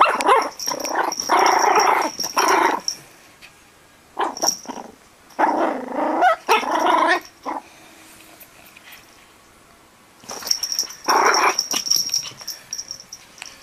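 Yorkshire terrier puppy growling, with small yips, in four bursts separated by short pauses.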